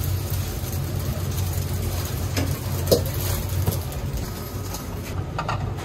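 Steady low roar of a commercial gas wok burner, with beaten egg sizzling in the oiled wok and a sharp knock about three seconds in.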